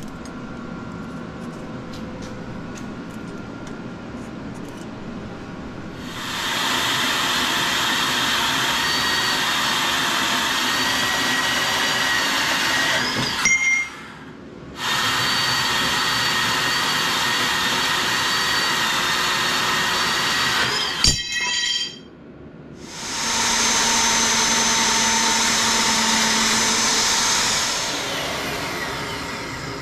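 Power tools working steel flat stock. A motor runs steadily with a whine in two long stretches of about seven and six seconds, each cut off suddenly. Near the end a machine with a higher whine runs for about five seconds.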